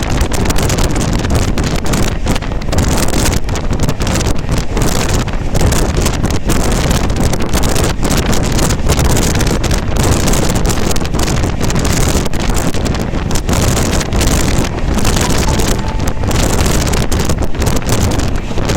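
Express passenger train running at speed: loud wind rushes and buffets the microphone over a steady rumble of the coach on the rails.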